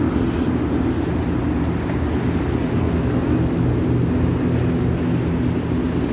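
Steady low rumble of wind buffeting a phone microphone while riding a bicycle.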